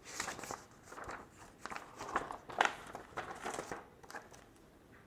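Paper pages of a printed code book being leafed through: a run of irregular rustles and swishes that stops about four seconds in.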